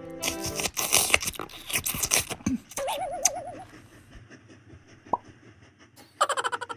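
Loud, exaggerated slurping and munching sound effects as a kulfi is licked and bitten, followed by a short cartoon-style warbling tone about three seconds in. A fast rattling clatter starts near the end.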